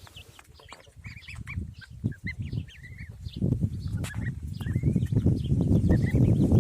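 Goslings peeping with many short, high calls. A low rustling noise builds beneath them from about a second in and grows loudest in the second half.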